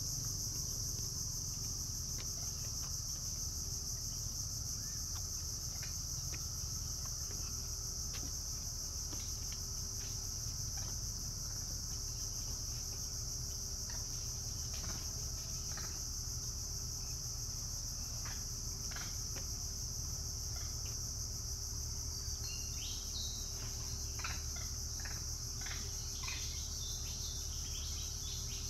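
A steady, high-pitched insect chorus of crickets or cicadas buzzing without a break. In the last few seconds birds chirp in a quick run of short calls over it.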